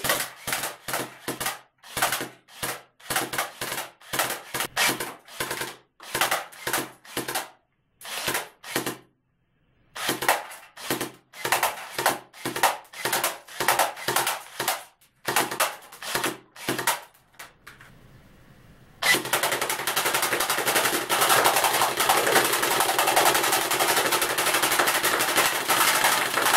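Homemade CO2 air submachine gun firing BBs into an aluminium beer can in short shots about twice a second, with two pauses. About 19 seconds in it turns into a long unbroken rush of firing and hissing gas, the gun leaking CO2.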